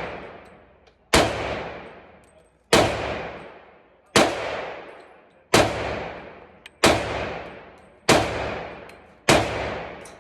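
Glock 33 pistol in .357 SIG with an extended ported barrel, fired seven times at a slow, even pace, each shot followed by an echo that dies away over about a second.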